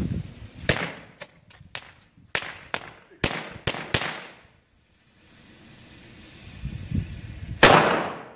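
Knallfrosch (jumping-jack firecracker) going off in a quick, irregular string of sharp bangs for about four seconds. After a short lull comes one louder bang near the end.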